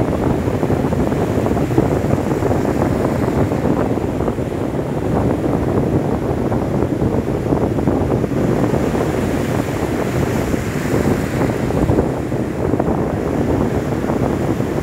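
Waves breaking on a sandy beach, with wind buffeting the microphone: a steady, even roar.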